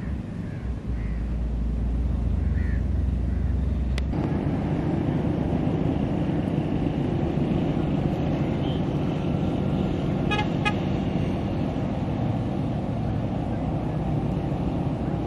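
Steady motor or traffic rumble, with two quick horn toots a little past the middle.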